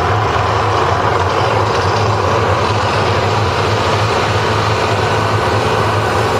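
A steady, loud, low rumble under a dense roar, from the Mirage volcano show's eruption effects.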